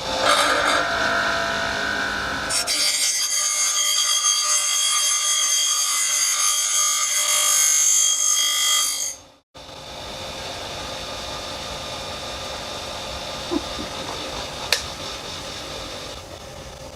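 Power tool running under load, a high-pitched grinding hiss with several steady whining tones, which cuts off abruptly about nine seconds in. A quieter steady machine sound follows, with two sharp ticks near the end.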